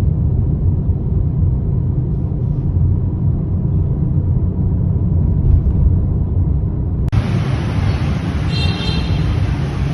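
Loud steady low rumble. About seven seconds in it cuts abruptly to a hissier rumble, with a brief high tone of a second or less near the end.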